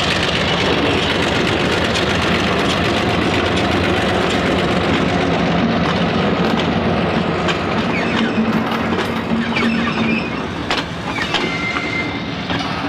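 Y class diesel locomotive Y159 with its six-cylinder EMD 645-E engine, running hard as it passes close by. After the first half its carriage's wheels click over the rail joints, with a brief high wheel squeal near the end as the sound dies away.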